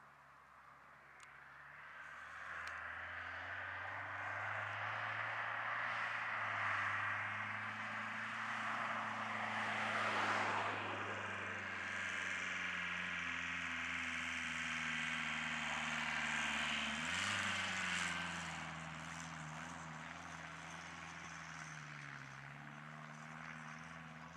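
Ford Transit diesel van's engine running and revving as the van is driven across a field, getting louder as it comes nearer and fading as it drives off, with a rise and fall in engine pitch about two-thirds of the way through.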